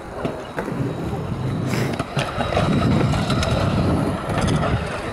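Stunt scooter wheels rolling over skatepark concrete, growing louder about two and a half seconds in, with a few short knocks.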